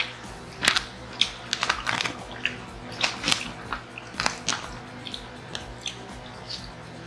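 Close-up eating sounds: chewing and crisp crunching, with many short, irregular sharp clicks and crackles, as a fork picks at a Caesar salad in a plastic tub and food is bitten.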